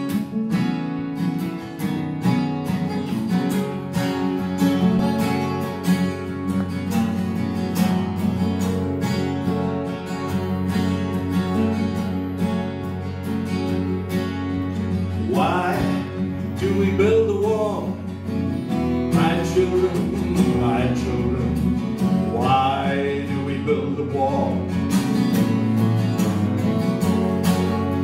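Two acoustic guitars strumming with an upright double bass plucking low notes, playing a song's opening in a folk arrangement; a voice comes in singing phrases about halfway through.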